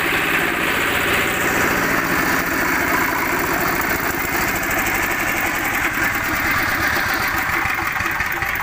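Jiang Fung 7HP single-cylinder diesel engine running steadily with an even rapid beat, belt-driving a Shark 1HP piston air compressor, with the pump's clatter and hiss mixed in.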